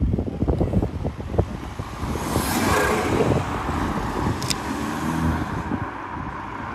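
BMW 4 Series coupé's exhaust as it pulls away and accelerates, with a run of short pops in the first second and a half, a loud rush as it drives past and the note then fading into the distance.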